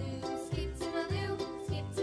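Children's background music with a steady bass beat about twice a second under a bright melody.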